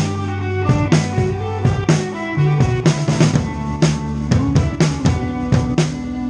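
A live band playing: a drum kit keeping a steady beat with bass drum and snare hits, over sustained bass and guitar notes.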